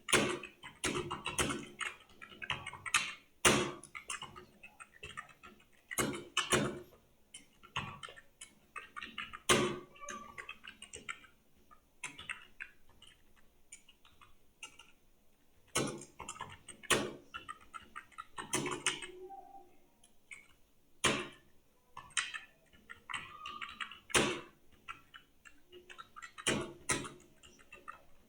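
Computer keyboard typing in irregular bursts of rapid keystrokes with short pauses and a few louder strokes, during a timed English typing-speed test.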